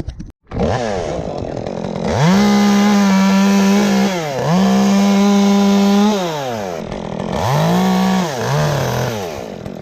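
Chainsaw revving up to full throttle and held there while cutting through a tree top, easing off briefly about four seconds in, then running flat out again before dropping to idle. Near the end it is blipped up twice more in short revs.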